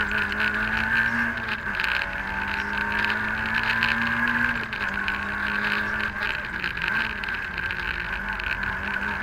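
Citroën AX GTi Group N rally car's four-cylinder engine, heard from inside the caged cabin while driven hard on a rally stage. The revs climb steadily and fall back sharply about two seconds in and again around halfway, with a brief dip near the end. Constant road noise runs underneath.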